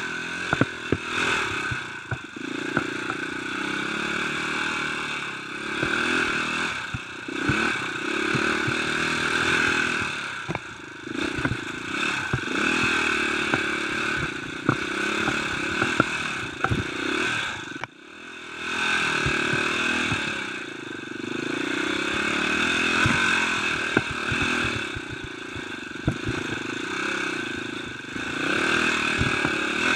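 Dirt bike engine running on a rough singletrack, revving up and easing off over and over, with frequent sharp knocks and rattles from the bike jolting over the trail. About eighteen seconds in the engine drops off sharply for a moment, then picks up again.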